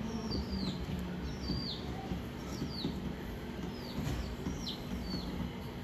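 A small bird chirping over and over, each call a quick note sliding downward, about two a second.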